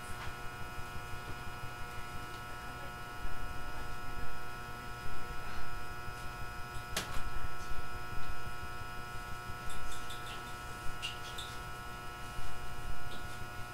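A 209 series electric train standing at a station, its on-board electrical equipment giving a steady hum with several high tones over a low rumble. Scattered light clicks and knocks run through it, with one sharp click about seven seconds in.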